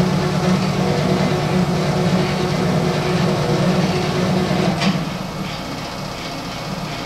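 CNC-converted RF-45 clone milling machine running a program, its axis stepper motors driving the table with a steady hum and several held tones. About five seconds in there is a short click, and the hum drops quieter.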